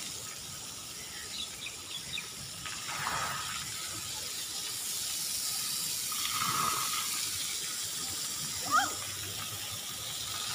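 Water jets and misting nozzles of a splash-pad playground spraying, a steady hiss that swells for a few seconds in the middle. A short high squeal cuts in about nine seconds in.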